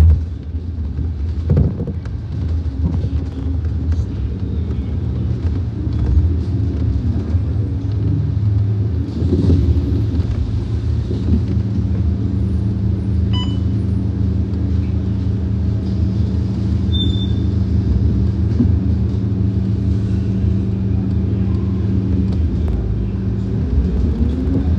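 Scania K230UB bus's diesel engine, a 9-litre five-cylinder, running steadily under way, heard from inside the passenger cabin with low rumble. Near the end the engine note rises.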